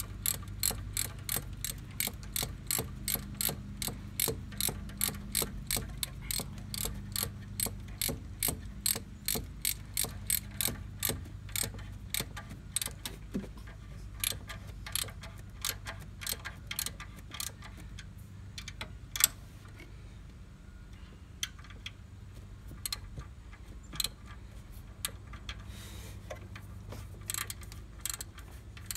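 9/16 socket ratchet clicking as it snugs the bolts of an exhaust manifold clamp, about two or three clicks a second for the first dozen seconds, then slower and scattered, with one louder click about two-thirds of the way through.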